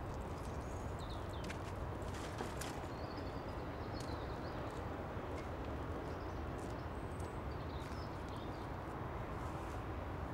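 Outdoor ambience: a steady low rumble and hiss with scattered light clicks and ticks, and a few faint high chirps.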